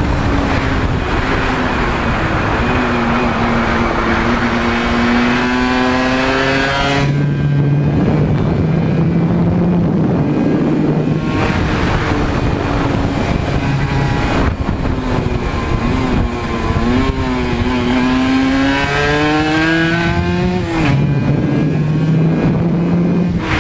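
Aprilia RS125's single-cylinder two-stroke engine under hard throttle. Its pitch climbs for several seconds and drops suddenly twice, about seven seconds in and near the end, with steady wind rush over the onboard microphone.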